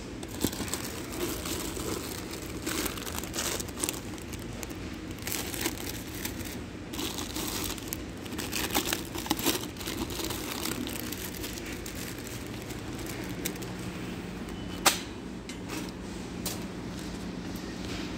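Crinkling and rustling handling noises over a steady low hum of store background, with a single sharp click about fifteen seconds in.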